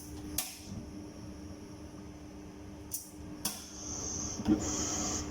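A few light clicks and knocks of kitchen cookware being handled over a steady low hum, with a soft hiss in the last second and a half.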